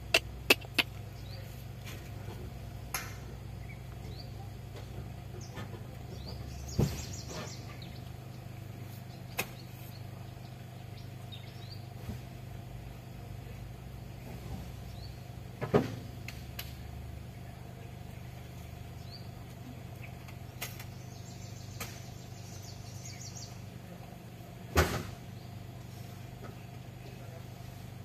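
Outdoor ambience: a steady low hum under scattered sharp clicks, with two short passages of rapid high-pitched chittering, about a quarter and three-quarters of the way through.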